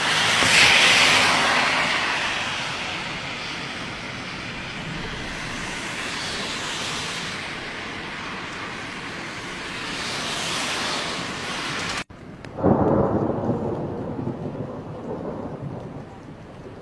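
Thunderstorm: heavy rain hissing under rolling thunder, which swells loudest about a second in and twice more later. After a sudden cut, a fresh low thunder rumble sets in and fades away.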